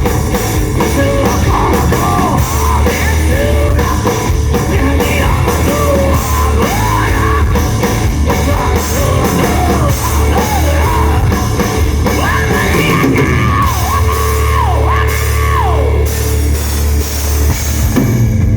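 Rock band playing loud and live: a singer's voice sliding between notes over distorted electric guitars, heavy bass and drums.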